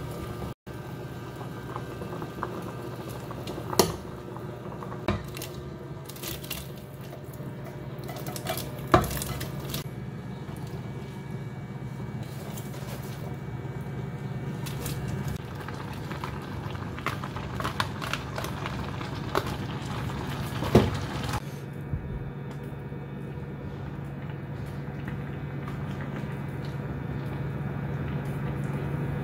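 Broth boiling in a stainless steel pot, with a metal spoon clinking sharply against the pot a handful of times as ingredients are stirred in, over a steady low hum.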